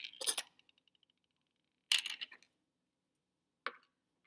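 Small metal and plastic model-car parts and screws clinking and rattling in small boxes as they are handled and set down on a wooden table: a clatter with a brief fading ring at the start, a short rattle about two seconds in, and a single knock near the end.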